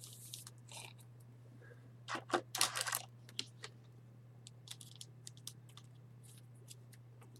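Faint scattered clicks, with a short rustle about two to three seconds in, over a steady low electrical hum.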